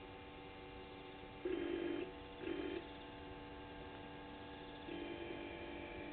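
Steady electrical hum from a remote-controlled pan-tilt-zoom camera, with its motor whirring in two short bursts and then a longer run from about five seconds in as the camera is moved.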